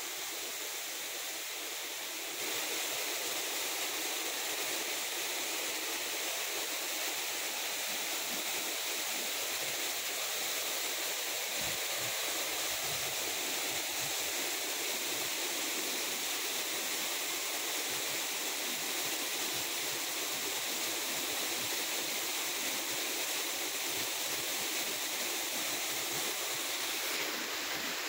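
Overflow water from a tank's stone weir pouring steadily over the wall into the pool below, a constant rush of falling water that grows slightly louder about two seconds in.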